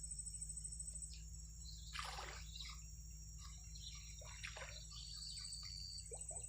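Outdoor ambience of insects buzzing in a steady high-pitched drone with scattered bird chirps, and a brief noisy sound about two seconds in.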